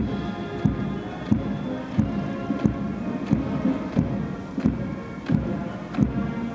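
Military march music with held brass-like tones and a steady bass drum beat about every two-thirds of a second.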